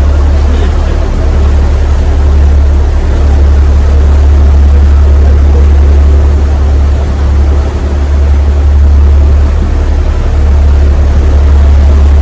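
Ferry's engine droning steadily, a heavy low hum under a constant rushing noise of the hull moving through the water.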